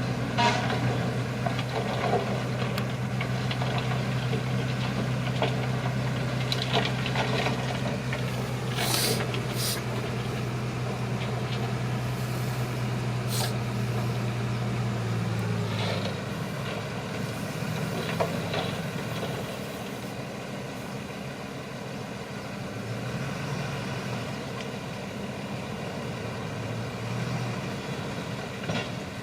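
Shantui crawler bulldozer's engine running steadily under load, with a few short, sharp high sounds near the middle. About halfway through, the engine note drops lower and quieter as the throttle eases off.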